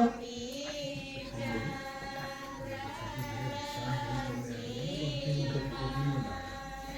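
A group of voices singing a slow devotional song with long held notes: the mangal geet of a sacred-thread ceremony.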